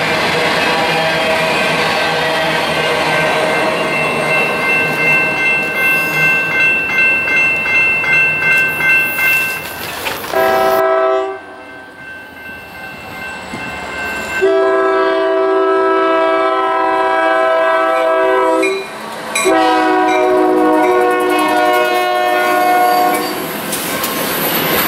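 A freight train rolling past, its wheels clicking in a steady rhythm, with a faint horn in the background. Then an approaching freight train's multi-chime air horn blows one short blast and two long ones, and the cars roll by near the end.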